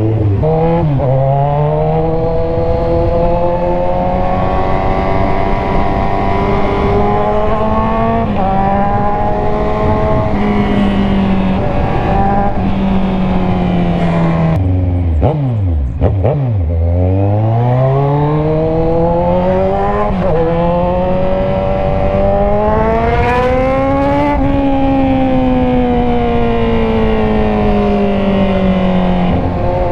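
A 2015 Kawasaki Z1000's inline-four engine with a loud aftermarket Orion muffler, revving up through the gears with a short dip in pitch at each shift. About halfway it drops to low revs, then accelerates again and eases off near the end.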